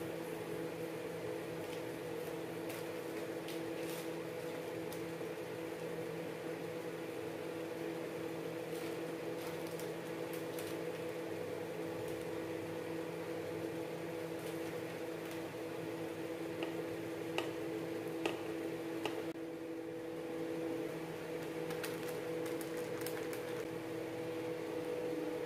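A steady low mechanical hum, with scattered light clicks and taps from spices being spooned and sprinkled over fish in a steel bowl, a few sharper ticks about two thirds of the way in.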